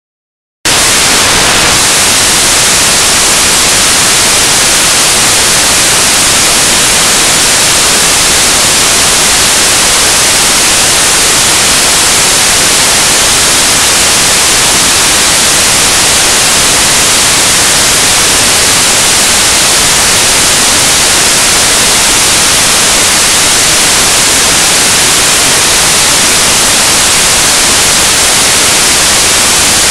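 Loud, steady static hiss like white noise, starting abruptly about half a second in and not changing. Nothing of the gym, such as ball bounces or shoe squeaks, can be heard through it, which points to a noise-filled or corrupted recording rather than any sound from the court.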